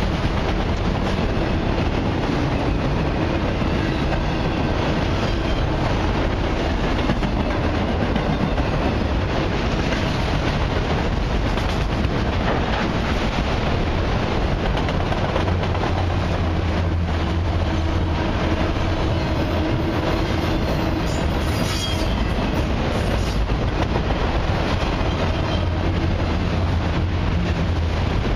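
Freight train of autorack cars rolling past close by: a steady rolling noise of steel wheels on the rails with clickety-clack, and a brief high squeal a little past two-thirds of the way through.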